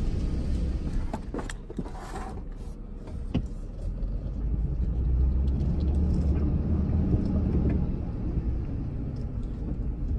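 Pickup truck driving slowly, its engine and road rumble heard from inside the cab as a steady low drone, with a few light knocks in the first few seconds.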